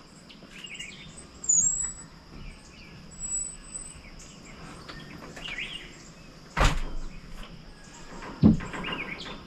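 Thumps and knocks as a man climbs back up onto wooden deck framing, the two sharpest about 6.5 and 8.5 seconds in. Birds chirp briefly over a steady high insect drone.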